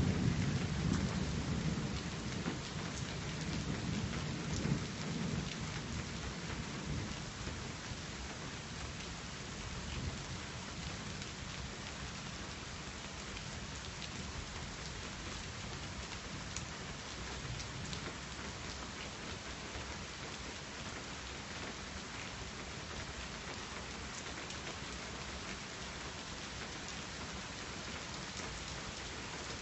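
A roll of thunder, loudest right at the start and rumbling away over the first six seconds or so, over steady falling rain that carries on evenly afterwards.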